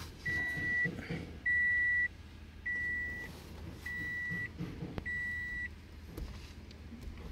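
Five even electronic beeps, all on one high pitch, each about half a second long and about one every 1.2 seconds.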